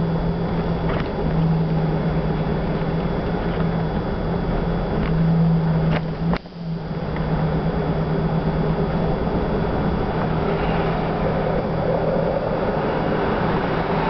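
Engine and road noise heard inside the cabin of a slowly moving vehicle: a steady low hum over a rushing noise, with a sharp click about six seconds in.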